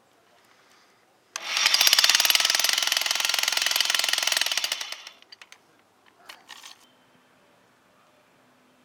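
Concrete hammer drill starting suddenly about a second and a half in and running with a rapid hammering for about three seconds before winding down, followed by a few clicks and knocks.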